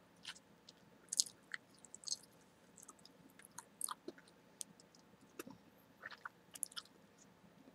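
Bubble gum being chewed close to the microphone: irregular wet, sticky clicks and smacks of the mouth and gum, a few a second.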